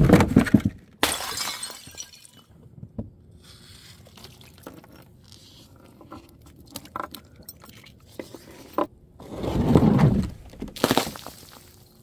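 Glass bottles shattering: a loud break at the start, scattered clinks of shards in between, and another heavy crash about nine and a half seconds in.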